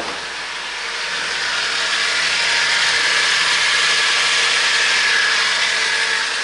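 GAZelle Farmer truck engine revved up from its warm-up idle, held at higher revs for a few seconds, then let back down. Afterwards it is judged to run quietly, with a newly fitted alternator.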